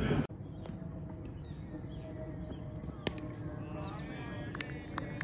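Opens with the fading echo of a loud cricket bat strike in an indoor net, then changes abruptly to faint outdoor ambience on a cricket field: distant voices and birds chirping, with a few short sharp clicks in the second half.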